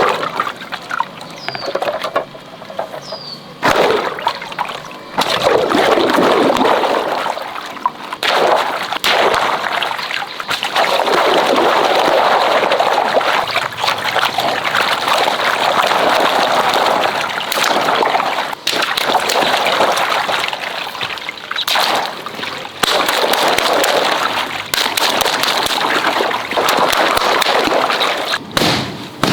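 Water pouring and splashing in several stretches of a few seconds each, with a few sharp knocks in between.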